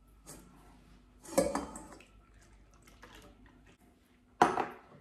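Metal clinks and clanks as an opened tin can of evaporated milk is tipped out into a stainless steel mixing bowl: a sharp ringing clank about a second and a half in, and a louder one near the end, with a few lighter knocks between.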